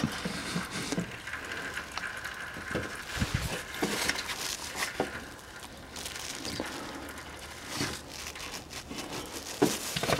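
Gear oil pouring from a plastic bottle into a Land Rover Defender transfer case filler hole, splashing irregularly, with the bottle crinkling and a few small knocks.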